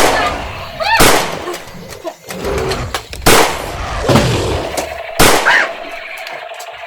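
Gunshot sound effects: four loud single shots, the first two a second apart, then two more about two seconds apart, each with a short ringing tail.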